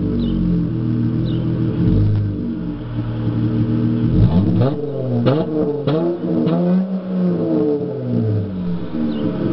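Exhaust of a Dodge Charger's 3.6L Pentastar V6 through a Flowmaster Super 44 muffler with the resonators deleted. It idles, is revved in a few quick blips between about four and seven seconds in, then drops back to idle.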